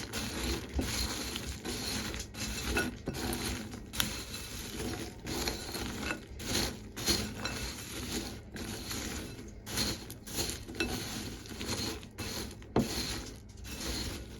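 A spoon stirring pecans, puffed rice cereal and chocolate chips together in a bowl: continuous irregular rattling and scraping with light clinks.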